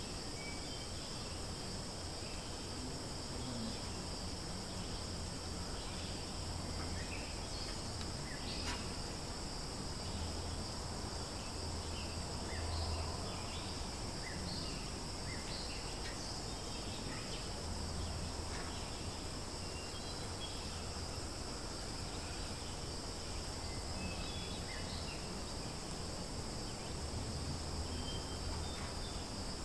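Steady high-pitched drone of forest insects, with short scattered bird chirps over it.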